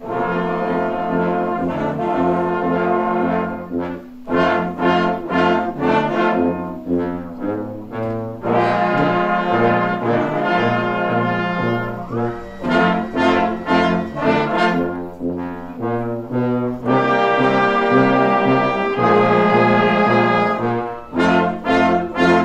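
Background music led by brass, alternating held chords with runs of short repeated notes.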